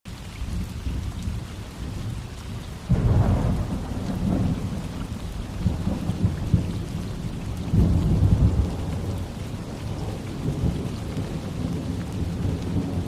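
Steady rain falling, with deep low rumbles that break in suddenly about three seconds in and again about eight seconds in, each fading over a second or so.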